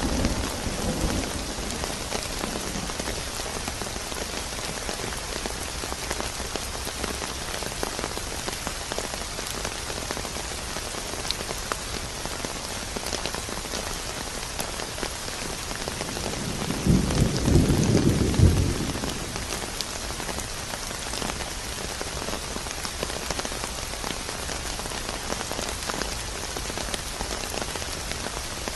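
Steady rain falling, with a low rumble of thunder that swells and fades over about two seconds a little past the middle.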